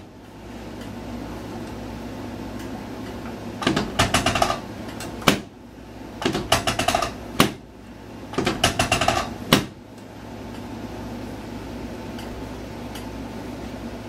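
Chiropractic adjusting table under a lower-back adjustment: three rounds of rapid clicking and creaking, each ending in one sharp clack, typical of the table's drop section falling under the thrust.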